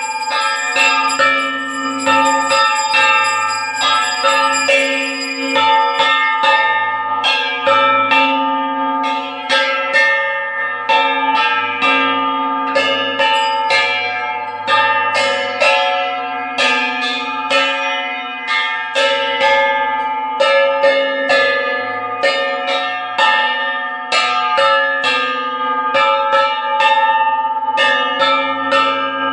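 Puja bells rung continuously in quick repeated strikes, several a second, their rings overlapping, as rung during an aarti.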